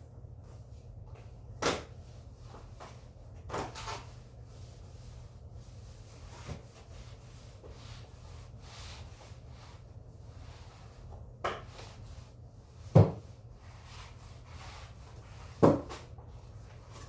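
Scattered knocks and thumps of things being set down or bumped on wood, six or so spread out, the loudest about two-thirds of the way in, over a steady low hum.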